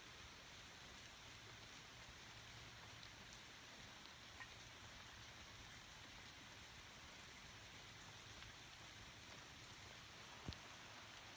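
Light rain falling, a faint, even hiss with a few scattered small ticks and one sharper tick near the end.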